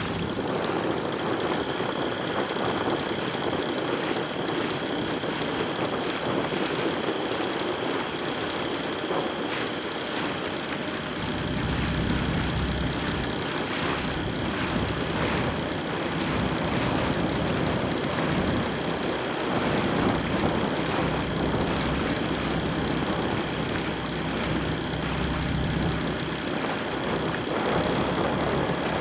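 Wind and water noise over a motorboat engine running steadily, its low hum growing louder about eleven seconds in, with the splash of kayak paddle strokes.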